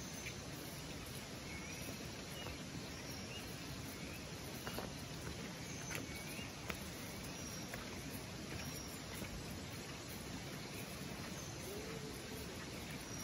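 Forest ambience: a steady hiss with short, high chirps every second or two, and a few soft footsteps of sandals on a dirt path near the middle.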